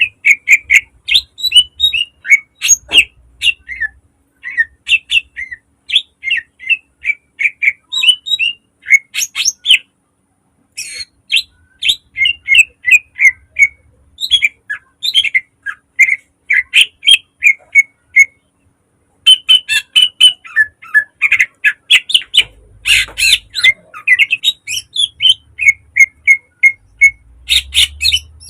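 Cucak ijo (green leafbird) singing a loud, rapid song of short, sharp, varied notes in quick runs, broken by two short pauses.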